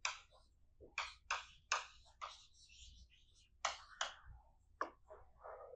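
Pen or chalk writing on a board: about nine short, faint strokes, spaced irregularly.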